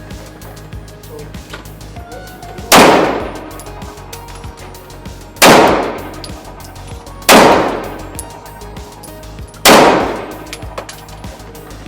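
Four single gunshots fired one at a time, roughly two to three seconds apart, each with a sharp crack and a ringing tail that dies away over about half a second. Many faint pops and clicks sound between them.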